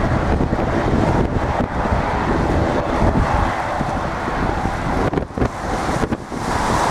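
Boeing 777's twin jet engines at takeoff thrust as the airliner climbs away: a loud, deep, fluttering rumble.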